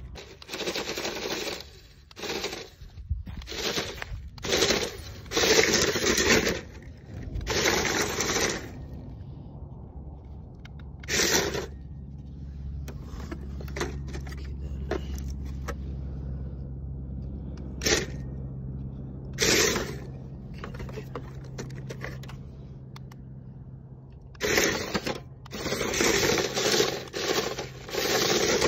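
Remote-control toy Toyota Land Cruiser's small electric drive motors whirring in short, stop-start bursts, its mecanum roller wheels scrabbling and scraping over dry, crusted dirt.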